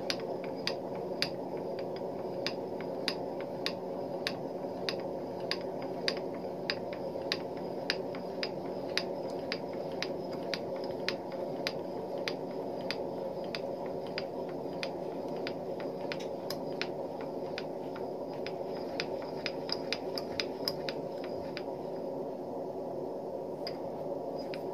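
JET JMD-2S benchtop milling machine's table being traversed under a dial test indicator: a steady hum with light, sharp metallic clicks about two a second.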